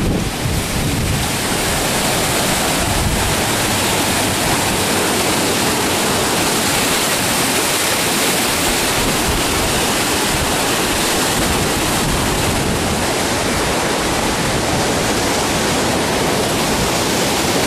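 Fast-flowing floodwater rushing steadily, a loud, unbroken rush of water.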